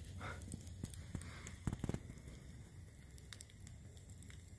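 Wood campfire, a long fire of burning logs, crackling faintly with scattered sharp pops, a few louder ones about two seconds in.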